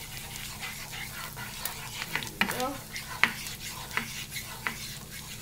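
Butter sizzling in a nonstick frying pan while a wooden spatula stirs and scrapes pollock roe through it, cooking the roe. A few sharp taps of the spatula against the pan come around the middle.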